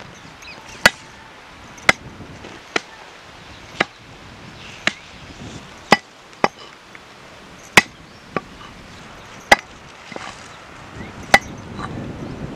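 A heavy curved chopping knife hacks raw country chicken into pieces on a wooden log block. It makes a series of sharp chops about one a second, each with the blade knocking into the wood.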